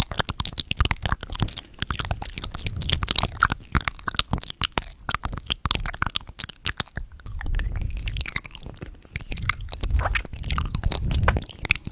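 Close-miked chewing and crunching of candy, with a dense run of small crackles and wet mouth clicks.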